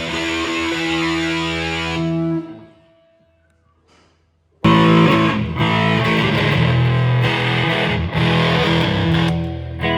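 Live band music led by a distorted electric guitar. The playing breaks off about two and a half seconds in, leaving near silence, then starts again abruptly and loud about four and a half seconds in.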